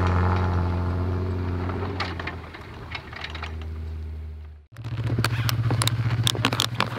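Jeep Wrangler engine running steadily as it tows a snowboarder away, fading as it pulls off. After a sudden cut near the end, a steady low engine hum with sharp clicks and crunching snow as a snowboard binding strap is done up.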